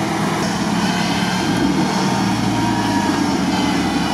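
UAZ 4x4 engine running steadily under load as the vehicle crawls through reeds and mud. The engine note picks up about a second and a half in.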